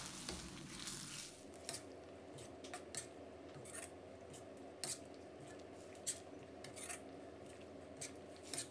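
Stainless-steel ladle stirring chicken pieces in red curry coconut sauce in a metal pot, its edge knocking and scraping against the pot in faint, irregular clicks, about seven in all, over a faint steady hum.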